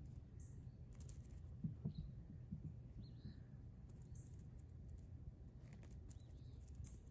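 Faint outdoor background: a low steady rumble with a few faint, short, high bird chirps.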